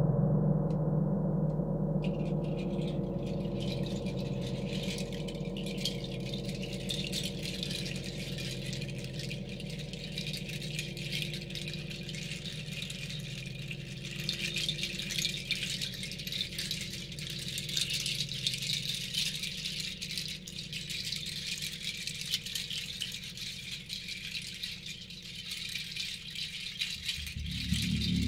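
A handheld rattle shaken steadily, a dense high rattling, over the low hum of a large gong slowly dying away. Near the end a gong is struck again and a new low tone sets in.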